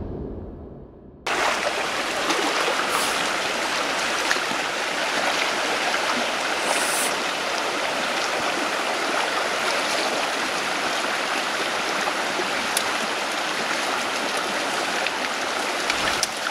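A shallow, rocky mountain stream running steadily. It cuts in about a second in, after a brief fading sound.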